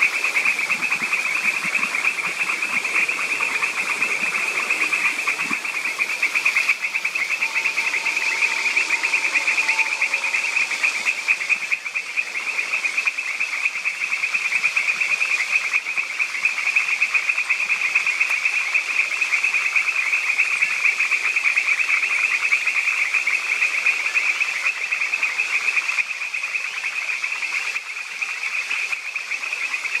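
A steady, high-pitched insect chorus: a dense, rapid pulsing trill that stays at one pitch throughout, over a fainter steady hiss.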